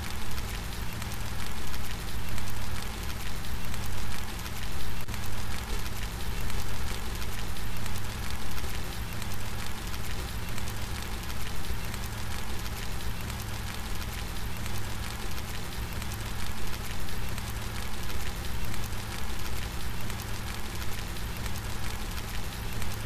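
Steady rain falling, an even hiss with a low rumble underneath, its loudness swelling and easing every couple of seconds.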